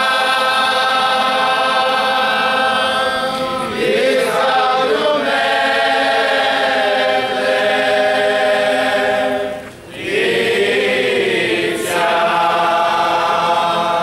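A chorus of hooded confraternity members in a Holy Thursday procession singing a slow chant in unison. The notes are held long, in phrases, with a short break for breath about ten seconds in.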